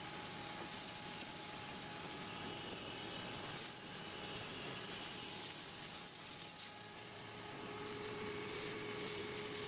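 Vacuum truck running at a work site, a fairly faint steady roar of engine and vacuum pump with a faint held whine. A second, lower whine comes in about three quarters of the way through.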